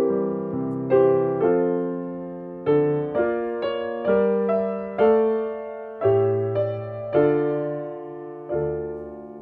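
Slow solo piano music: chords and single notes struck about once a second and left to ring out.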